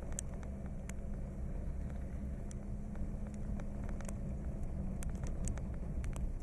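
Vehicle driving slowly off-road over a rough field, heard from inside the cab: a steady low engine and tyre rumble with scattered light clicks and rattles.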